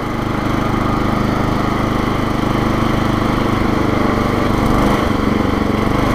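Murray riding lawn mower's small engine running steadily under way at cruising speed, an even engine note with no change in pitch.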